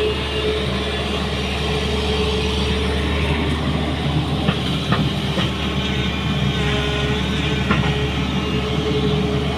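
SANY crawler excavator's diesel engine running steadily under load, with a strong low hum and a steady higher tone from the machine as the arm and bucket work. A few sharp knocks of stone and steel come about halfway through and again near the end.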